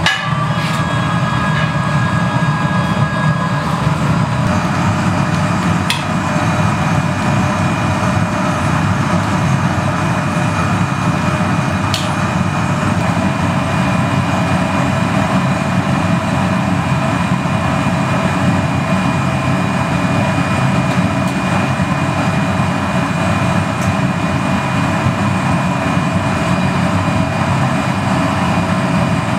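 Gas-fired glory hole and furnace burners with their blowers running at a steady, loud, even level, a couple of light clicks over it.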